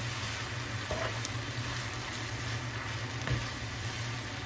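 Rice, steak and pepper strips sizzling quietly in a pan on a gas stove as a spatula stirs them, with a few faint scrapes, over a steady low hum.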